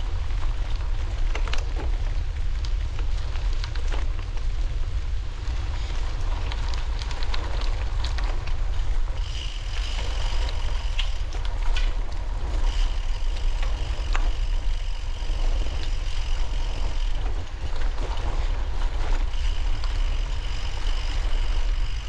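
Steady low rumble of wind on the microphone while moving, with scattered clicks and rattles. A thin high whine comes in about ten seconds in, stops briefly and returns.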